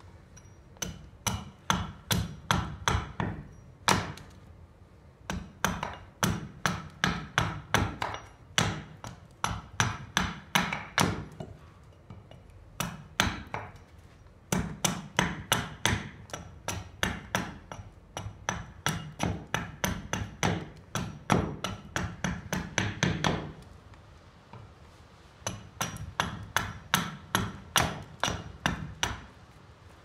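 Forged SIBIN axe taking quick, light chops down the sides of an upright stained-oak blank, shaving it into a furniture pin. Runs of sharp wooden strikes about three a second, broken by short pauses.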